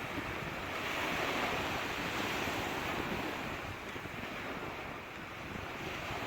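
Sea waves breaking and washing on the shore, a steady rush that swells and eases.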